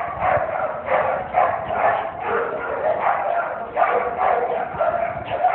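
Pit bull-type dogs barking repeatedly, about two barks a second, without a break.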